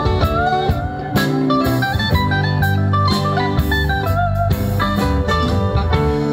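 Live rock band playing: electric guitars, electric bass, drum kit and keyboard, with gliding, bent guitar notes over a steady drum beat.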